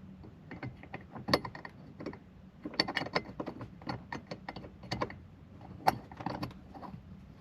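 Irregular clicks, taps and light rattles of small plastic and metal parts being handled and fitted together as a dashboard phone-mount base goes into place. There is a quick run of clicks about three seconds in and a sharp single click near six seconds.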